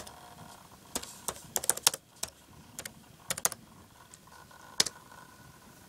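Key presses on a Toshiba laptop keyboard: a dozen or so sharp clicks in irregular bunches, typing in a login ID and password.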